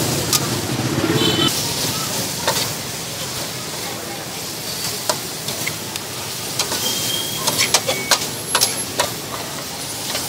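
Greens and meat sizzling in a hot wok over a gas burner while a metal spatula stir-fries them, with scattered sharp clanks and scrapes of the spatula against the wok, more of them in the second half.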